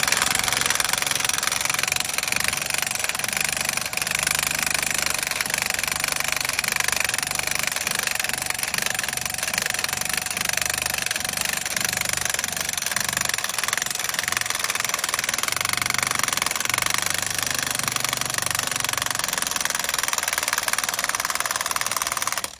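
Milwaukee cordless 1-inch impact wrench hammering in one long unbroken run as it drives a helical pile, lengthened with extensions, down through the soil.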